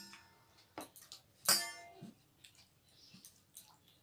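Stainless steel bowls clinking, each clink ringing briefly with a metallic tone. One comes right at the start and a louder one about a second and a half in, with faint small clicks of eating between them.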